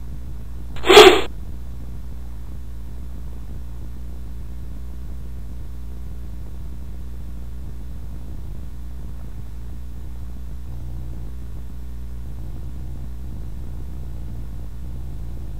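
A short, loud burst about a second in, then a steady low engine drone as a truck drives along.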